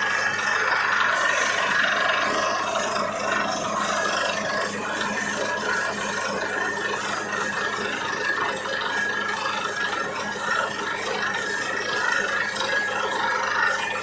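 Borewell drilling rig running steadily: a dense, continuous mechanical noise with a constant high whine.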